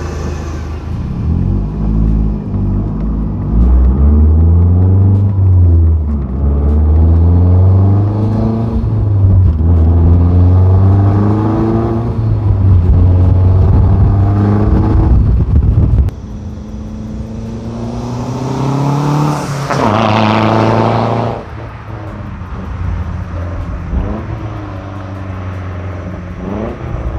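Mazdaspeed 3's turbocharged 2.3 L MZR four-cylinder, with its second catalytic converter deleted and a muffler delete, accelerating hard through several gears, heard from inside the cabin: a rumbling exhaust whose pitch climbs and drops back at each shift. About sixteen seconds in the sound cuts to a quieter outside recording, where the car revs up once more.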